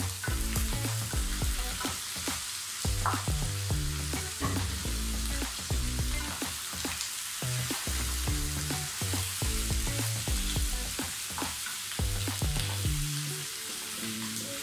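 Beef spareribs sizzling in a hot frying pan as a wooden spatula stirs them, with scattered knocks and scrapes of the spatula against the pan. Background music with a low bass line runs under it and stops about 13 seconds in.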